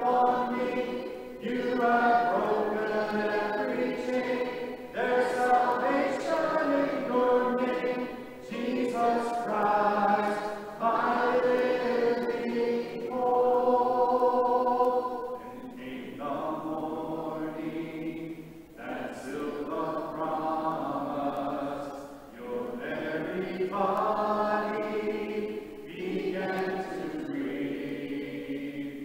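A church congregation singing a hymn a cappella in four-part harmony, with no instruments. The sung phrases are separated by brief breaths, and the singing softens about halfway through as a verse begins.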